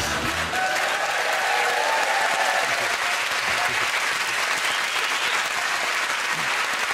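Studio audience applauding steadily at the end of a dance routine.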